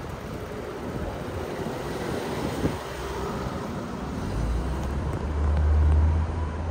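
City street traffic noise, a steady hum of cars on the road. About two-thirds of the way in, a deep low rumble swells up and grows louder.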